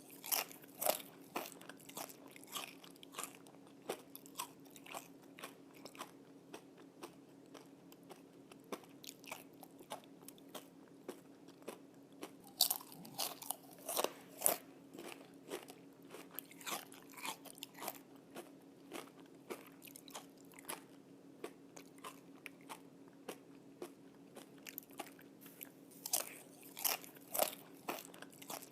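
Crispy pan-fried bacon crunching up close: many sharp, brittle crackles a few times a second, with louder bursts of crunching about halfway through and near the end.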